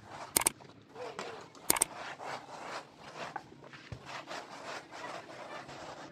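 Plastic trowel rubbing and scraping over a fresh white cement skim coat in repeated short strokes as the surface is smoothed. Two sharp clicks stand out in the first two seconds.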